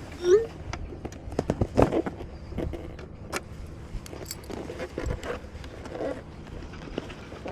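Clicks, light knocks and rattles of small gear being handled, irregular, with a short squeak just after the start.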